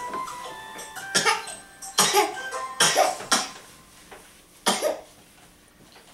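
A person coughing: a run of about five short, loud coughs between about one and five seconds in. Faint music with steady tones plays underneath near the start.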